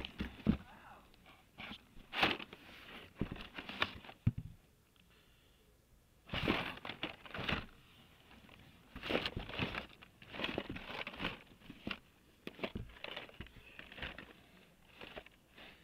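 Carded Hot Wheels die-cast cars in plastic blister packs being flipped through in a cardboard box: irregular clacks and crinkles of plastic bubbles and card backs knocking together, with a short pause about five seconds in.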